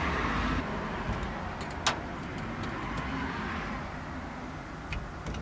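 A few sharp metallic clicks from a hand tool working the small retaining ring off an ignition cylinder, one about two seconds in and a couple near the end. They sit over a steady low background rumble.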